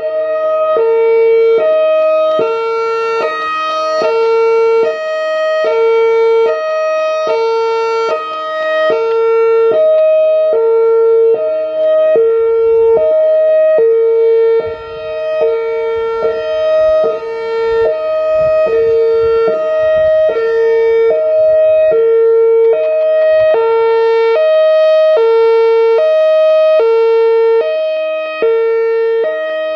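Outdoor warning siren sounding a hi-lo pattern: two steady pitches about a fourth apart swap abruptly, each held for about half a second, over and over.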